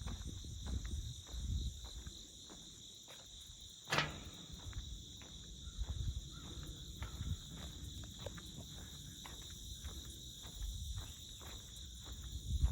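A steady high insect chorus, cricket-like, runs throughout, over soft scattered taps and a sharp knock about four seconds in.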